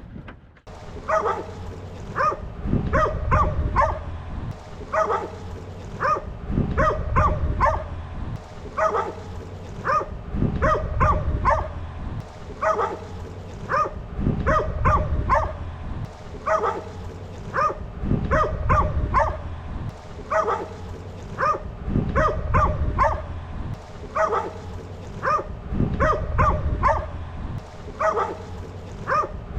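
A dog barking over and over in quick runs of two to four barks.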